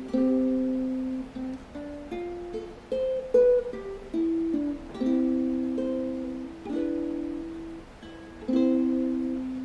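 Ukulele played slowly, chords struck about once a second and left to ring out and fade, with a few quick single notes between them.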